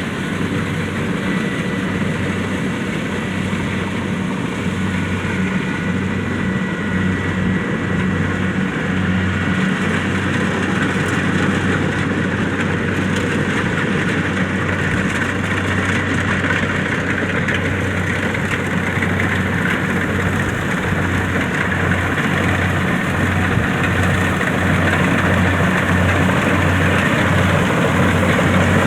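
Kubota DC-70 rice combine harvester running under load, its diesel engine humming steadily over the rattle and whir of the threshing machinery, slowly growing louder toward the end.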